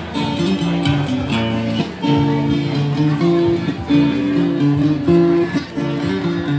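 Acoustic guitar music, plucked and strummed, playing a melody of held notes that change in steps.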